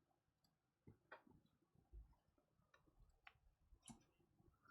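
Near silence with a handful of faint, short clicks and taps from trading cards and their packaging being handled.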